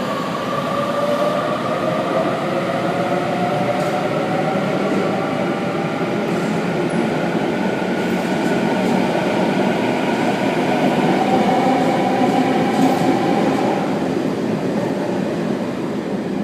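Sydney Trains Waratah electric train pulling out of the platform: steady wheel and rail rumble with a motor whine that glides in pitch.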